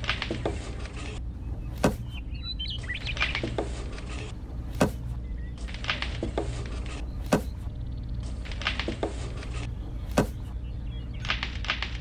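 Plastic cherries being plucked off miniature model trees: four sharp clicks about two and a half seconds apart, each with a softer tick a second or so before it.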